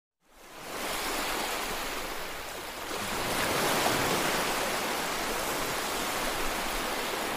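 A steady rushing noise like surf or hiss, with no tones or clear beats, fading in over the first second and swelling a little about three to four seconds in.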